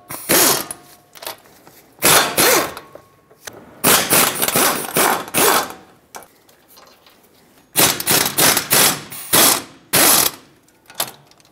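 3/8-inch impact gun with a swivel socket hammering loose the four 17 mm bolts that hold the front wheel hub and bearing assembly to the steering knuckle. It runs in about five short bursts, the middle one longest at nearly two seconds.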